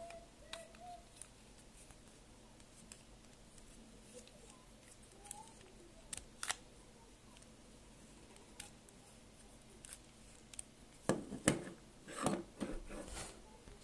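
Lego plastic pieces clicking and knocking against each other as a three-piece Lego mechanical puzzle is slid together by hand. Sparse light clicks come first, then a cluster of louder knocks near the end.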